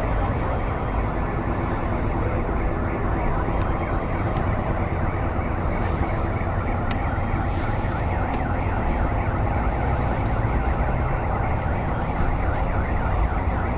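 Steady din of a large outdoor crowd, many voices blended together over a low rumble.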